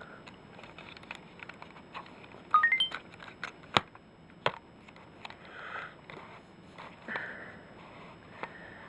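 Kingear PL002 camcorder being opened and switched on: scattered handling clicks, a short rising run of electronic beeps about two and a half seconds in, the power-on tone, then a couple of sharp clicks.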